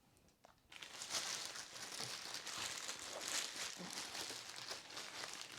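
Crinkling and rustling of packaging being handled and unwrapped, starting about a second in and going on steadily with small ticks.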